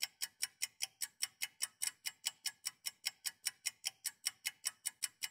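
Fast, perfectly even clock ticking, about five or six crisp ticks a second, with nothing else under it.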